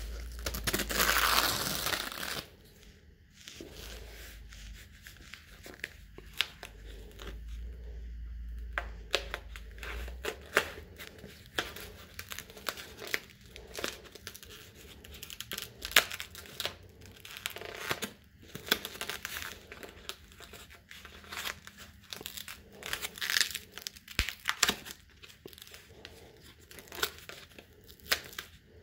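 Foam tubing being cut and worked around the sharp cut edge of the opening: a loud rasping noise in the first two seconds, then many short crinkles and clicks as the foam is handled and pressed on.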